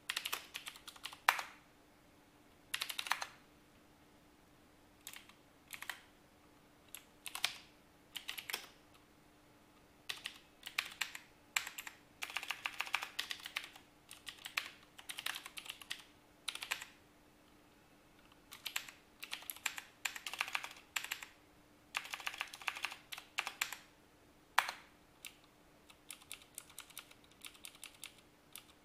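Typing on a computer keyboard: quick runs of key clicks broken by pauses of a second or two, with a few single louder keystrokes.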